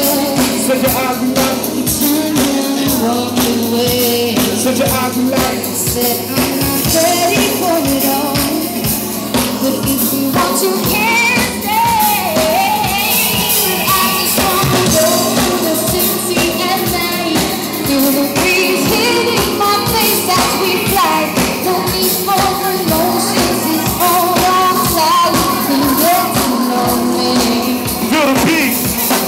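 Live music: a woman singing into a microphone over a backing track with a steady beat.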